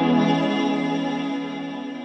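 Ambient background music of sustained, held tones, fading out over the second half.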